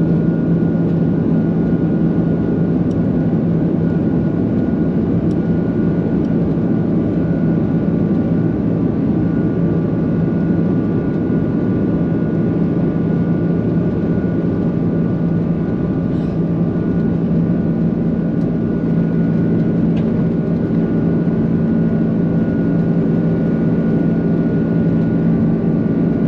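Airbus A330-300 taxiing, heard from inside the cabin: its jet engines run at low power as a steady hum with a constant whine, holding the same level throughout.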